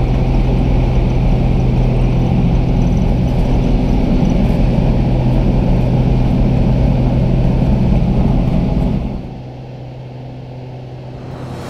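Piston engine of a small single-engine high-wing plane running steadily, heard from inside the cabin as a loud drone. About nine seconds in, it drops to a much quieter, duller drone.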